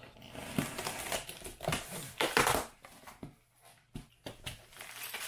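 A utility knife slitting the clear packing tape along a cardboard box's seam, then the cardboard flaps being pulled open with scraping and crinkling, loudest a little over two seconds in. A sharp click about four seconds in.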